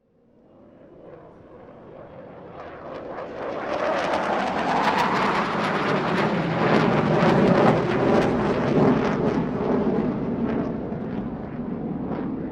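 Airplane passing overhead: a noisy, crackly roar that builds from nothing to a peak about halfway through, then slowly fades away.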